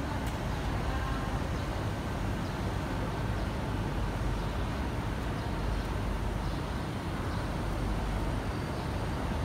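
Steady city street traffic noise: a continuous low rumble of road vehicles with no distinct events.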